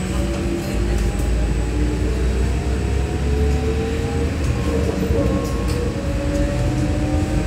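A trolleybus heard from inside its cabin while moving: a steady low road rumble, with the whine of its electric drive, several thin tones slowly rising in pitch as it picks up speed.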